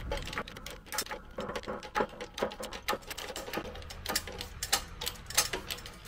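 Hydraulic shop press forcing a front wheel bearing out of a steering knuckle, giving a rapid, irregular run of sharp clicks and ticks under load.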